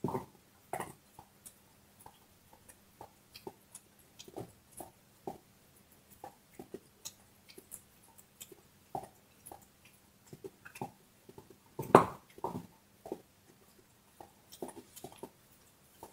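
A dog chewing and gnawing on a bone: irregular crunching clicks, about two a second, with the loudest crunch about three quarters of the way through.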